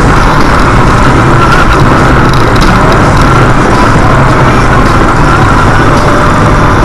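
Steady road and engine noise inside a car cruising at highway speed, picked up by a dashcam microphone. It is loud and unchanging, a constant rumble and hiss with no distinct events.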